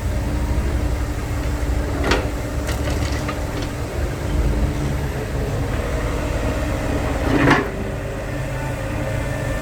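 Heavy diesel engine running with a steady low rumble, broken by sharp knocks, one about two seconds in and a louder one about seven and a half seconds in.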